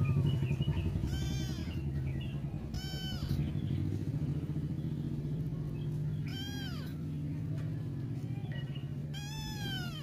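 Sick kitten meowing four times, each a high call that rises and falls, over a steady low hum.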